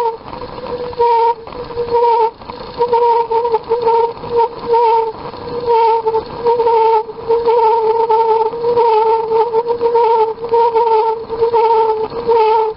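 Toyotomi Laser Burner heater burner resonating with a loud, hooting, steam-whistle-like tone that pulses about twice a second. This is the combustion resonance the burner makes when it is short of air.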